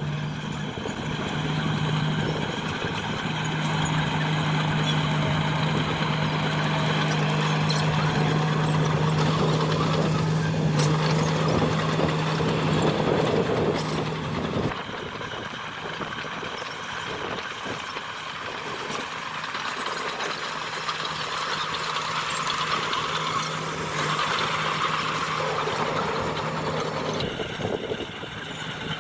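Diesel engine of a heavy earthmoving machine, a dump truck or bulldozer, running with a steady drone. It gets quieter about halfway through.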